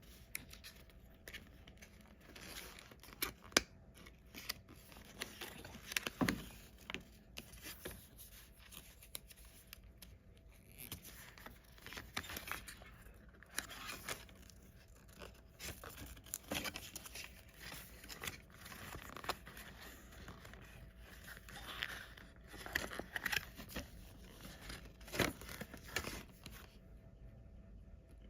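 Packaging of a MagSafe charger being handled and opened by hand: irregular tearing, crinkling and clicking of paper and plastic, with sharper handling knocks now and then. It dies away near the end.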